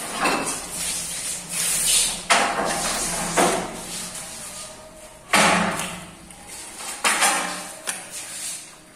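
Handheld angle grinder with an abrasive disc working the edge of a granite slab in short passes: several separate bursts of harsh grinding noise, some starting suddenly, with quieter gaps between them.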